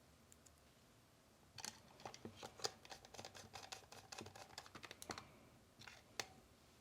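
Faint, quick clicks and scratches from small plastic toy parts being handled, bunched together from about a second and a half in to about five seconds, with two more clicks near the end.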